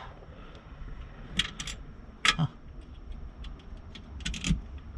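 Scattered light metallic clicks and taps as a metal window air-conditioner support bracket is handled and adjusted. The sharpest click comes about two seconds in, and a quick run of clicks comes near the end.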